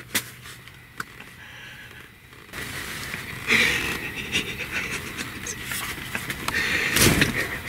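A man's heavy, fast panting breaths with stifled, breathy laughter: a bowhunter's adrenaline after his shot. The panting grows louder about two and a half seconds in and surges twice. There are two sharp clicks in the first second.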